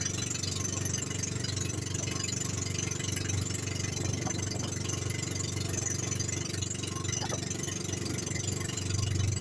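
Engine of an outrigger bangka running steadily under way, a low, even, rapid pulsing drone with a steady hiss of wind and water over it.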